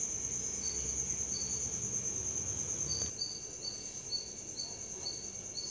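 Insects, likely crickets, trilling steadily at a high pitch, with shorter chirps repeating about twice a second. A low rumble underneath cuts off about three seconds in.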